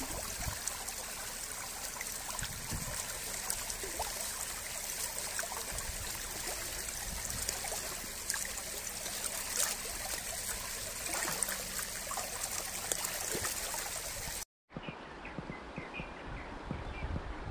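Fast shallow stream water rushing and splashing around a landing net held down in the current to release a fish. About 14 seconds in, the sound cuts out for an instant and gives way to a quieter riverside ambience with a few faint chirps.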